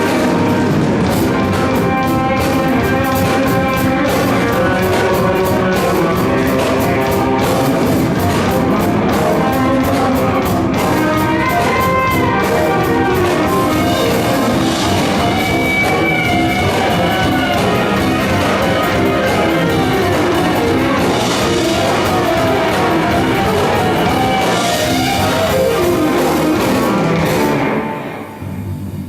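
A band playing music in a rock style, with guitar and drum kit. The music drops away briefly near the end, then a new passage starts.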